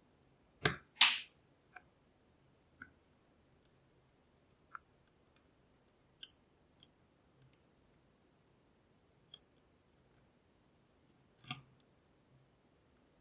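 Lock pick working the pins of a pin-tumbler challenge lock under tension: sparse small metallic clicks and taps, with two louder sharp clicks in quick succession near the start and a short cluster of clicks near the end.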